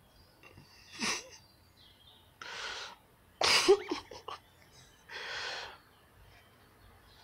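Four short, breathy hisses, about a second or two apart; the loudest, about midway, has a brief throaty edge.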